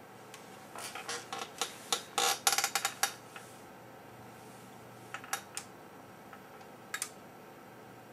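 A quick irregular run of sharp clicks and light clatter, then a few scattered clicks, over a faint steady hum.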